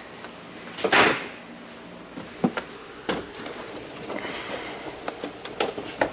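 Knocks and clicks from a plastic front bumper cover being handled and pushed into place: one loud clunk about a second in, then several lighter clicks and taps.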